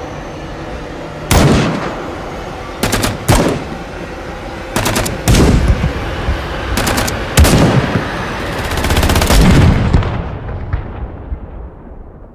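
Automatic gunfire in short bursts, each with an echoing tail, over a low rumble. A longer burst of rapid fire comes about nine seconds in, and the sound fades near the end.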